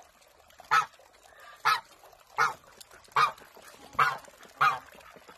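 Domestic goose honking in a steady series, six short honks about one every 0.8 seconds.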